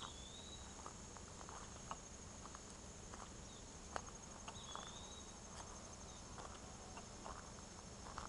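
Quiet footsteps crunching on a dirt and leaf-litter woodland trail, scattered ticks with one sharper click about four seconds in, over a steady high-pitched insect drone. A short bird note sounds twice, near the start and about halfway through.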